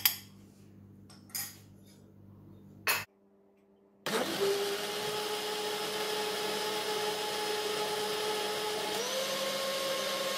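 A few sharp clinks of a spoon against a plastic blender jug, then an electric blender starts about four seconds in and runs steadily, mixing a thin liquid batter of milk, eggs, oil and flour. About nine seconds in, its pitch steps up a little.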